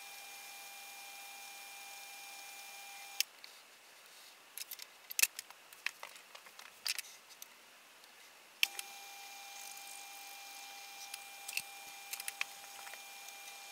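Small metal lathe running with a faint steady whine, switched off with a click about three seconds in. A few seconds of light metallic clicks and taps follow while the chuck stands still. Another click, and the whine starts again, with a few more small clicks near the end.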